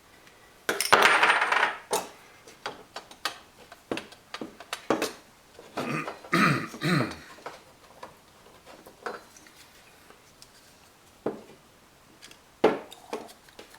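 Metal faucet parts and hand tools being handled: scattered clinks, knocks and a short rattle, like small metal pieces set down and picked up.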